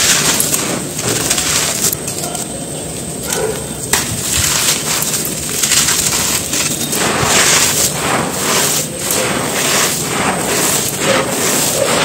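Dry, crumbly dirt clods squeezed and broken apart by hand: continuous gritty crunching and crackling, with grains and dust pouring back onto the pile.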